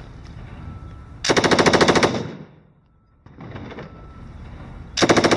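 Belt-fed 7.62 mm machine gun firing two bursts of rapid automatic fire, each about a second long, the second about four seconds after the first. Quieter automatic fire leads up to each burst.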